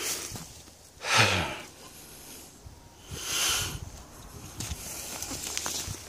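Footsteps and rustling through tall dry grass and brush, with a loud swish about a second in and a softer one around three seconds.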